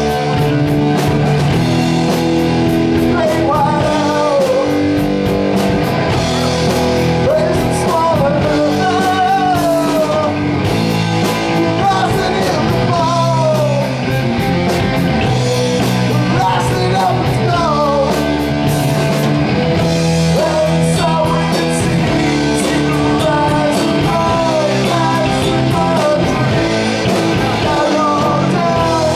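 Rock music: electric guitar with a full band and a singing voice carrying the melody.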